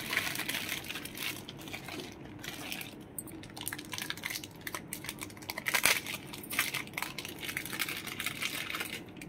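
Continuous crinkling and rustling of something being handled, with many small clicks and knocks.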